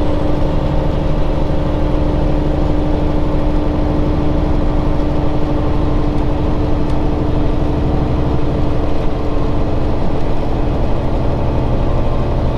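Cummins Signature Series heavy diesel truck engine running steadily at a constant speed, with no revving.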